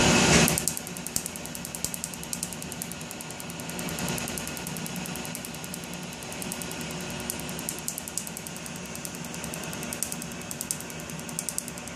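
Tattoo-removal laser firing rapid pulses: quick runs of sharp snapping clicks as each pulse strikes the inked skin, over a steady machine hum. A louder rushing noise cuts off about half a second in.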